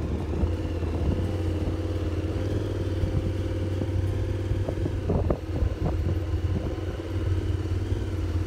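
Motorcycle engine running with a steady low note, with a few short knocks about five seconds in.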